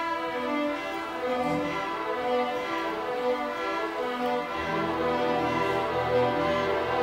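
Youth string orchestra playing, violins carrying a moving line of notes; cellos and double basses come in underneath about four and a half seconds in, and the music grows a little louder.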